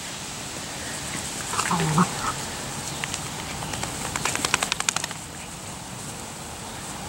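Schnauzer puppies in rough play: a couple of short yips about two seconds in, then a quick rattling run of sharp clicking sounds around four to five seconds in.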